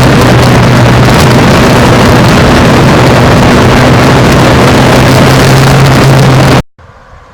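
1991 Yamaha FZR1000's inline-four engine running at a steady pitch while under way, buried in heavy wind rush on the microphone. The sound cuts off suddenly near the end.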